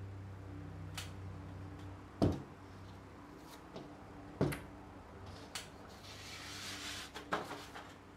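Two dull knocks and a few small clicks, then a soft paper rustle, as a pinned paper sheet is handled and taken down from a wall, over a low steady hum.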